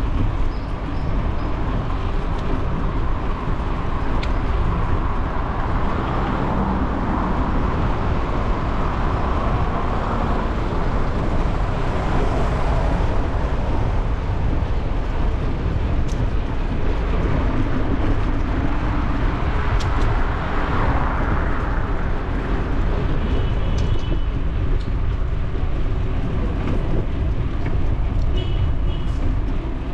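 Steady low rumble and noise of a bicycle ride picked up by a bike-mounted camera, with city street traffic rising and falling as vehicles pass, twice more loudly about a third and two thirds of the way through.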